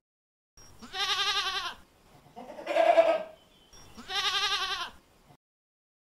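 Sheep bleating three times, each bleat about a second long with a quavering pitch.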